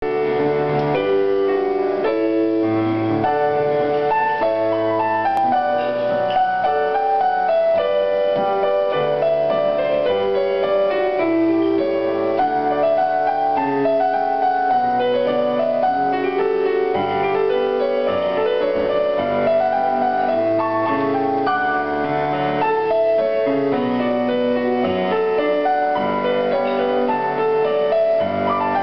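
Solo piano music: a flowing melody of single notes played over bass notes, at an even level throughout.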